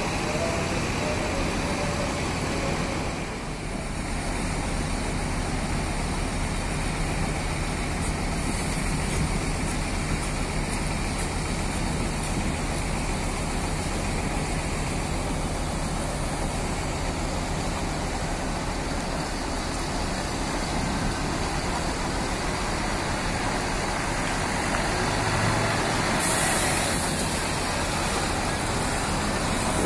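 Coach bus engine running steadily with a low rumble, with a short hiss near the end.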